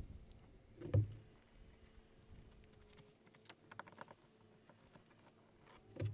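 Light handling noises of hands working masking tape on a fibreglass cabin side: scattered taps and small clicks, with one louder thump about a second in.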